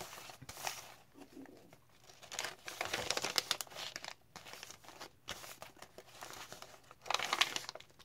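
Paper pages of a handmade junk journal, made from an old book, being turned and handled: stiff paper rustling and crinkling in several irregular bursts, the loudest about seven seconds in.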